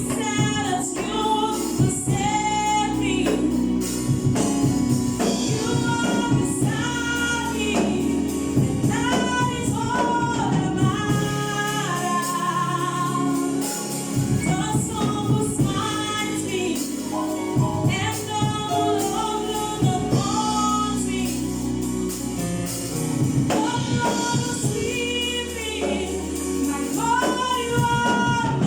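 Gospel choir singing with instrumental accompaniment, over a steady bass line that changes note every few seconds.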